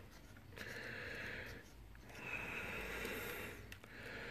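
A person breathing close to the microphone: three soft, hissy breaths, each lasting about a second.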